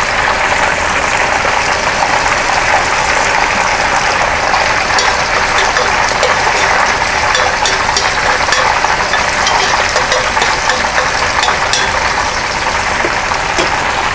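Food sizzling in pans on a stove: a steady frying hiss with small scattered crackles, from chopped shallots and pieces of salt cod cooking in fat. A spoon stirs the shallots around the middle.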